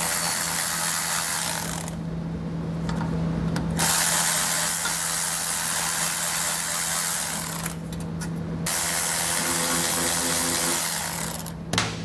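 Cordless ratchet running in three spells, with short pauses about two and eight seconds in, as it spins out the 8 mm bolts of the spacer block on top of a truck's rear axle.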